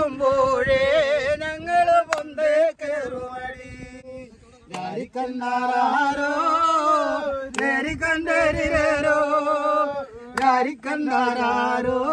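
Music: a solo voice singing long held notes with a wavering pitch, breaking off briefly a few times between phrases.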